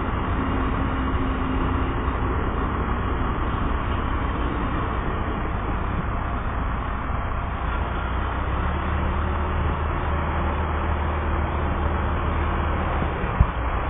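Amtrak passenger train rolling past a grade crossing, a steady rumble of cars on the rails, with the train's tail clearing the crossing partway through. A low steady hum comes in about two-thirds of the way through, and there is one sharp click near the end.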